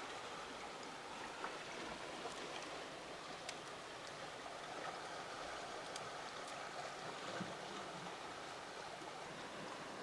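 Steady, even background hiss with a few faint, brief ticks; no bird call is heard.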